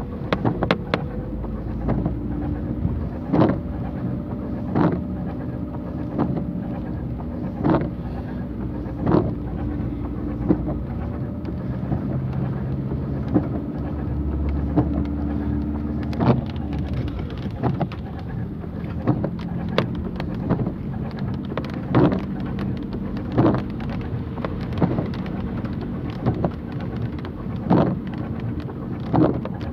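Inside a Mercedes car in heavy rain: the engine runs steadily under a hiss of rain and tyres in standing water, while the windscreen wipers sweep with a short sharp stroke about every second and a half.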